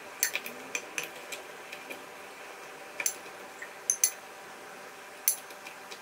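Metal spoon scraping and clinking against a ceramic plate as soft dough pieces are pushed off it: about ten sharp, irregular clinks with a bright ring.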